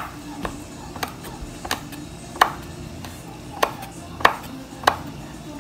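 Large kitchen knife chopping small red chilies on a wooden cutting board: about eight separate sharp knocks of the blade on the board, unevenly spaced, roughly one every half second to second.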